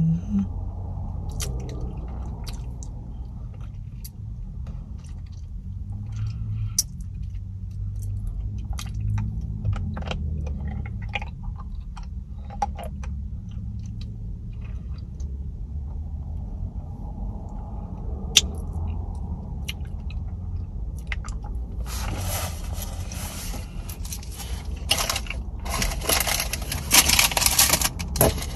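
Low steady rumble inside a car, with scattered small clicks and taps, then loud rustling and scraping over the last several seconds.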